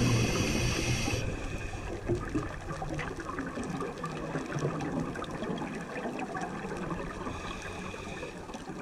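Muffled, gurgling water noise recorded underwater through a camera housing, with a higher hiss in about the first second that cuts off suddenly.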